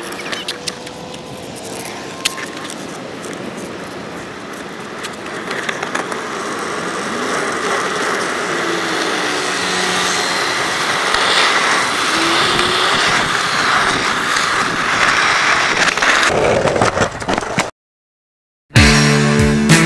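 Skateboard wheels rolling on rough asphalt: a steady rushing rumble that grows louder over the first fifteen seconds or so, with a few light clicks. It cuts off abruptly near the end, and rock music with guitar comes in.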